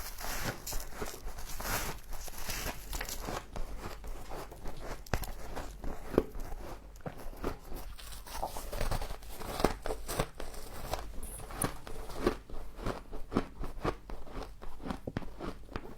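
Frost being bitten and chewed: a run of irregular crisp crunches and crackles.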